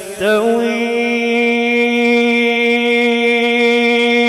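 A man reciting the Quran in melodic tajweed style, singing the word 'yastawi': after a short slide in pitch at the start he holds one long, steady note.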